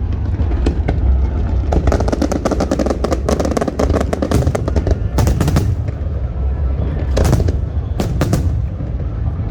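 Aerial fireworks going off: a quick run of rapid crackling bangs, then several louder single bursts over the last few seconds.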